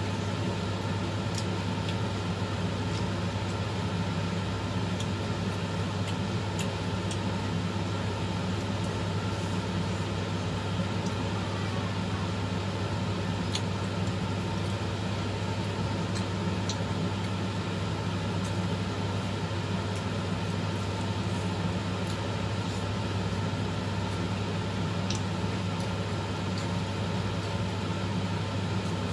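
Steady low electrical hum of a running appliance, unchanging throughout, with a few faint light clicks now and then.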